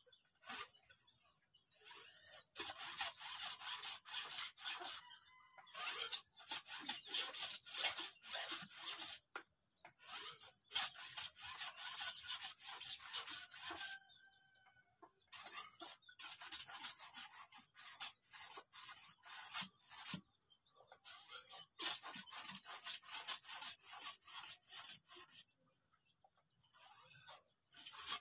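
A harsh, scratchy rasping noise that comes in repeated bouts of two to four seconds each, with short breaks between them.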